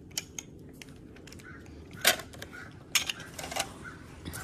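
Hard plastic toy farm vehicles being handled and knocked together: a scatter of small clicks and knocks, the sharpest about two and three seconds in.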